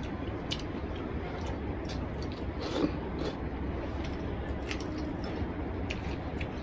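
Eating by hand: fingers squishing and mixing rice and curry on a plate, with chewing and scattered small clicks, one slightly louder about three seconds in, over a steady low hum.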